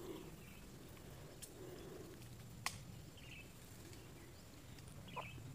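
Faint outdoor field ambience with a few soft, distant bird chirps and one sharp click about two and a half seconds in.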